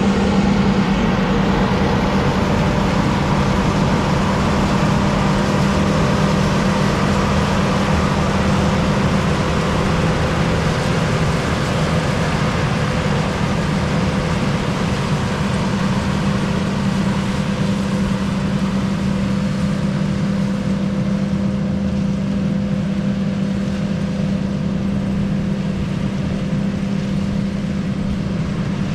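Rice harvesting machine running steadily, its engine giving an even drone with a strong low hum.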